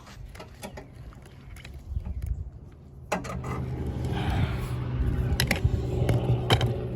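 A car engine running steadily, coming in about three seconds in and growing louder, with scattered clicks and knocks before and over it.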